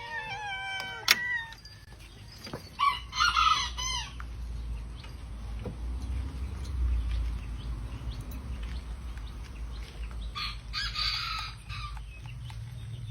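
Chickens calling: a stepped, falling pitched call at the start, then two harsh squawks of about a second each, one around three seconds in and one near eleven seconds.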